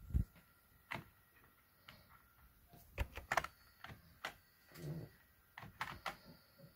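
Faint, irregular clicks and taps of computer keyboard keys, roughly one or two a second.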